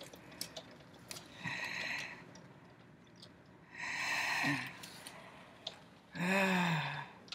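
A woman's breathy vocal sounds: two short sighing, hushed breaths about a second and a half and four seconds in, then a louder voiced sound with falling pitch near the end. Faint scattered clicks lie between them.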